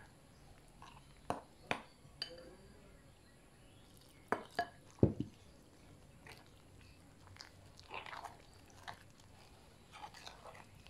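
Hand squeezing and mixing flour, margarine and water into a dough in a glass bowl: soft squishing with scattered knocks and clinks against the bowl, the loudest a cluster about four to five seconds in.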